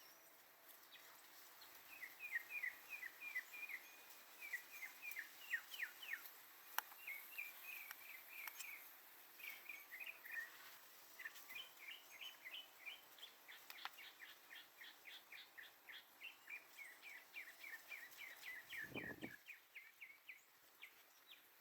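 Faint backyard birdsong: a bird giving long runs of quick, short, falling chirps, about four or five a second, with a soft low thump near the end.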